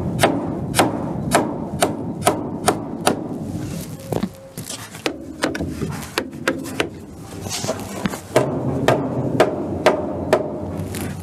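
Wooden block striking a timber door frame to knock a joint piece into place: sharp wood-on-wood knocks at about two a second, a few seconds of scattered lighter knocks and rubbing, then another run of knocks near the end.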